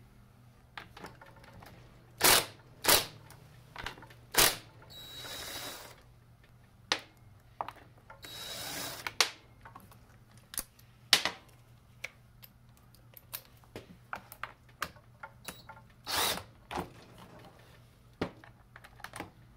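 Cordless impact driver running in several short bursts and two longer runs of about a second, spinning the 7/16 bar nuts and T25 screws off a McCulloch Eager Beaver chainsaw's clutch cover, with small clinks of nuts and tools being handled and set down on the bench between the bursts.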